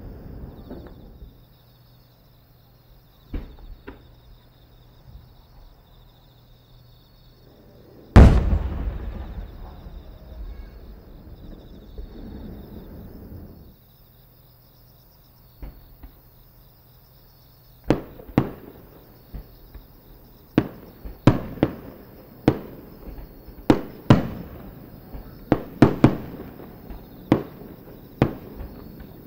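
Aerial fireworks shells bursting in the sky. One very loud boom comes about eight seconds in with a long rolling echo. From about eighteen seconds a quick run of sharp bangs follows, one or two a second.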